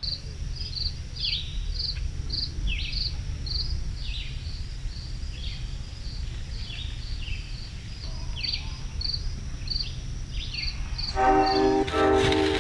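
Outdoor ambience: a steady low rumble under a high chirp repeating about twice a second and short falling whistled calls. Music comes in near the end.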